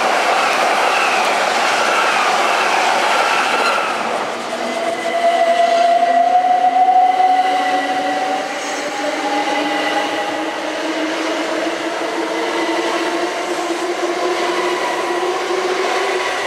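Class 377 Electrostar electric multiple units on the platform line. For the first four seconds one passes with its traction motor whine falling in pitch. Then a second unit runs close by with wheel noise and a motor whine that slowly rises in pitch as it gathers speed and pulls away, loudest at about five to eight seconds in.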